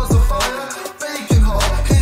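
Hip hop diss track playing: a male voice rapping over a beat with deep bass notes that slide down in pitch several times.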